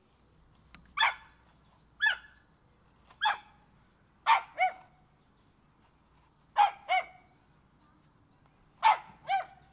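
A dog barking repeatedly: nine sharp barks, some single and some in quick pairs, about a second or two apart.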